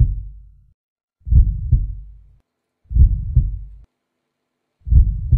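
Heartbeat sound effect: slow, low lub-dub double thumps, three beats about a second and a half apart, each fading out after the second thump.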